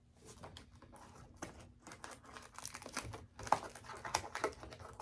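Trading cards and their wrapper being handled: irregular rustling, sliding and crinkling, busier and louder over the second half.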